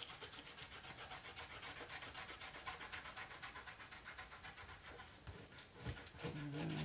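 Fingertips rubbing dried, salt-laden masking fluid off painted paper: quick scratchy strokes, several a second, as the salt is pulled off. A short low hum near the end.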